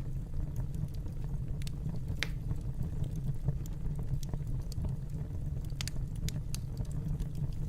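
Wood fire crackling in a fireplace: a steady low rumble of the flames with scattered sharp pops and snaps, a cluster of them a little before the end.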